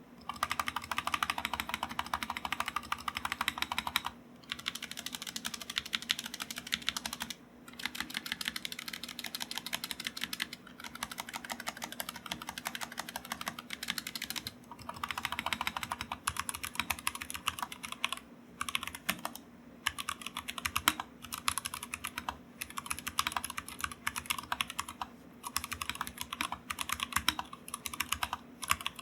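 Continuous typing on a Kemove Snowfox 61 60% mechanical keyboard fitted with Gateron Brown switches and pre-lubed stabilizers. A dense run of key clacks is broken by short pauses every few seconds.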